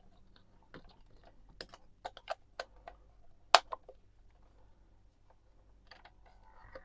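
Small plastic clicks and taps as AA batteries are pushed into a Saisho PS 21 EQ walkman's battery compartment and its cover is snapped shut, the sharpest click about three and a half seconds in. Near the end the walkman's cassette motor starts with a faint whirr.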